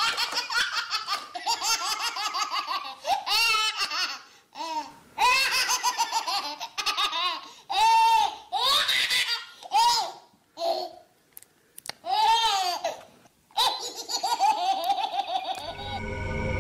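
Children laughing and giggling in repeated short, high-pitched bursts with brief pauses between them. Music starts near the end.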